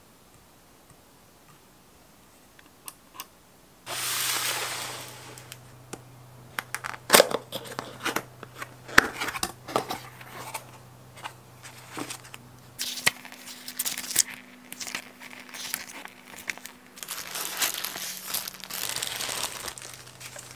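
Cardboard box being unpacked: a long sliding scrape about four seconds in, then irregular clicks, crinkles and rustles of cardboard flaps and paper inserts being handled, with another scraping stretch near the end.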